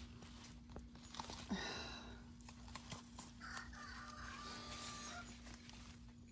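Faint rustling and small snaps of tomato leaves and stems being handled, over a steady low hum. A brief higher tone sounds about halfway through.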